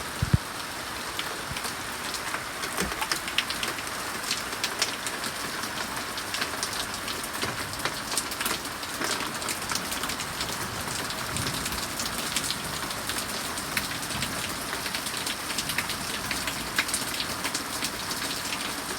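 Steady heavy summer rain: a constant hiss of rainfall with many separate drops ticking sharply on a hard surface, one louder tap just after the start.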